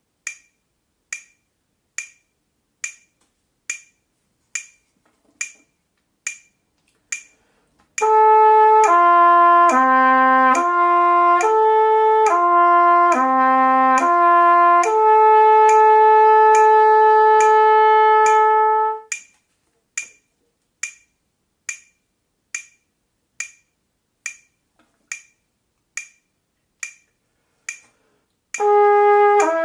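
Metronome clicking at about 70 beats a minute. About 8 seconds in, a trumpet plays a descending lip-slur exercise in quarter notes across the 2nd, 3rd and 4th harmonics. It ends on a long held note and stops about 19 seconds in, leaving the clicks alone. Near the end the trumpet starts the next slur pattern.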